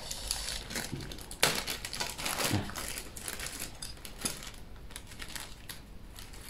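Plastic bag of small dried shrimp crinkling while it is held and picked from with chopsticks, with small clicks throughout and one sharp tap about a second and a half in.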